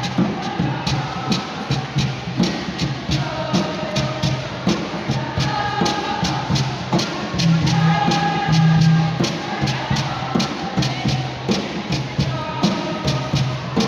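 Music with a group of voices singing over a steady, quick percussion beat and bass.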